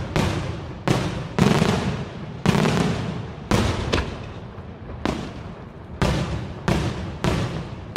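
Daytime aerial fireworks shells bursting in the air, about ten loud bangs at uneven spacing of roughly a second, each followed by an echo that dies away.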